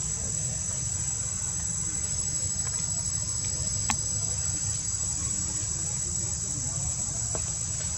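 Steady high-pitched insect chorus over a low steady rumble, with one sharp click about four seconds in.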